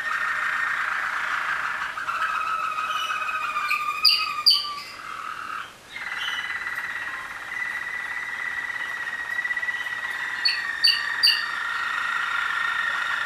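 A stam of four Waterslager (Malinois) canaries singing together in harmony: long, rolling, trilled tours held at a low, even pitch, with a few short higher notes about four seconds in and again near the end, and a brief break just before six seconds.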